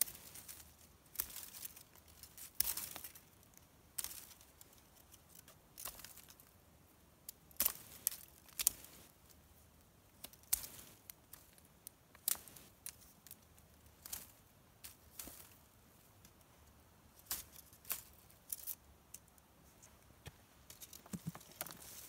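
Knife scraping and cutting along a long green sapling, trimming off twigs and bark: short sharp scrapes at irregular intervals.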